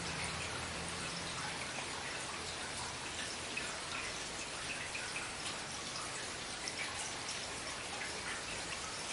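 Steady rain with individual drops pattering and dripping close by. A faint low hum sits under it for the first second and a half.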